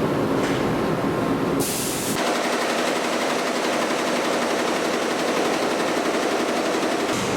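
Production machinery in a screen-printing and embroidery shop running with a fast, even mechanical chatter. The sound changes abruptly about two seconds in and again near the end, as one machine's noise gives way to another's.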